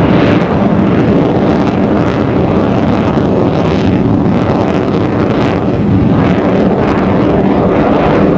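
Loud, steady jet noise from an F-14B Tomcat's twin General Electric F110 turbofans during its flying display.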